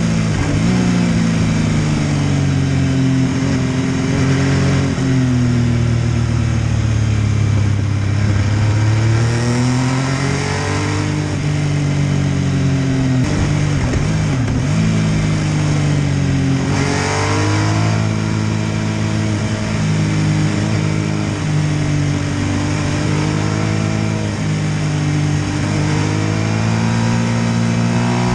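MV Agusta F3 800's inline three-cylinder engine being ridden hard, its pitch rising and dropping again and again as the bike accelerates, shifts and backs off, with a sharp rev climb several times.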